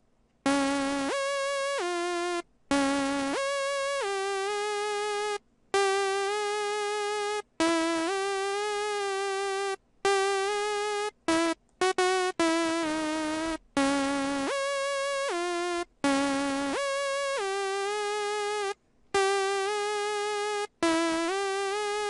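Single-oscillator synth lead patch in Native Instruments Massive, with no effects, playing a riff of held notes that slide up and down between pitches, in repeating phrases broken by short silences.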